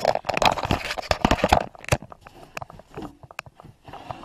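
Handling noise from plastic car interior trim and the handheld camera: a quick, irregular clatter of clicks, knocks and rubbing, densest in the first second and a half, then thinning to scattered clicks.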